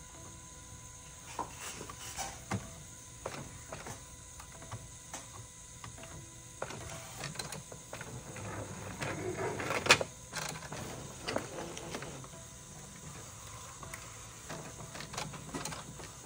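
Epson 8550 inkjet printer mechanism working through the start of a test print: scattered clicks and whirring from the print head carriage and paper feed, with a build-up and one sharp clack about ten seconds in.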